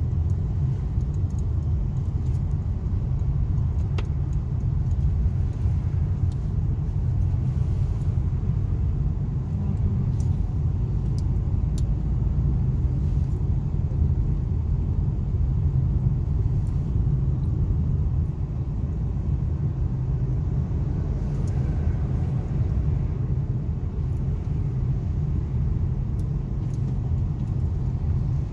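Steady low rumble of engine and road noise inside a moving car's cabin, with a few faint light clicks here and there.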